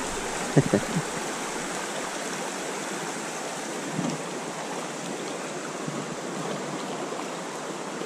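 Steady rush of a shallow mountain trout stream, with a few short knocks just under a second in. About four seconds in, a small splash as the hooked trout breaks the surface.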